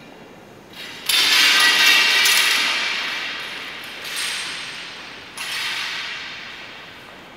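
Three crashing hits in the routine's accompaniment, each a bright hissing wash that fades away over a second or two; the first, about a second in, is the loudest.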